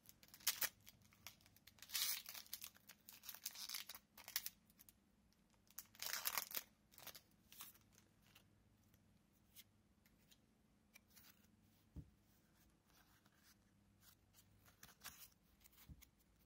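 Foil booster-pack wrapper of Pokémon cards being torn open and crinkled, in several rustling tears. The largest come about two and six seconds in. After that come softer clicks and rustles of the cards being handled.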